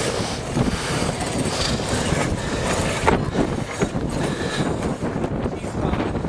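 Canvas sails of a wooden schooner flapping and shaking as they are hoisted, with irregular clatter from the rigging. Wind buffets the microphone throughout.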